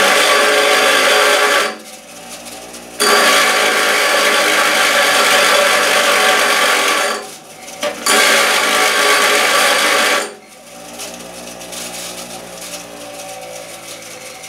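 Power grinder grinding down a steel door-hinge pin from a 1963 Chevy truck, flush with the hinge. It runs in three bursts with short pauses between them, then stops about ten seconds in, leaving a much quieter steady sound.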